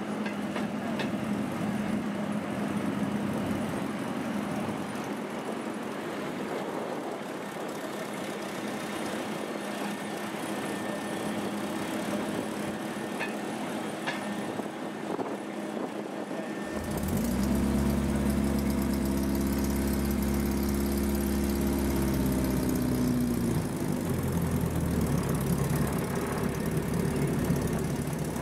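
Small engine of a railway inspection trolley running steadily at low revs. About two-thirds of the way in, the engine is suddenly much louder and closer, as if heard from on board, and its note drops as it eases off.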